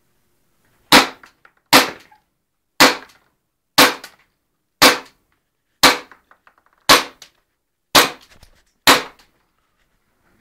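Airsoft pistol fired nine times in a steady rhythm, about one shot a second, each a sharp crack.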